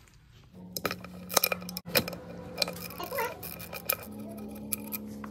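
Metal tools and parts clinking and tapping in a series of sharp knocks, over a steady low hum that shifts slightly higher in pitch about four seconds in.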